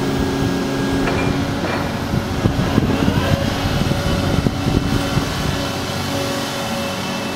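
Atlas 160 W wheeled excavator running steadily while its upper structure slews round, with a stretch of irregular clatter through the middle.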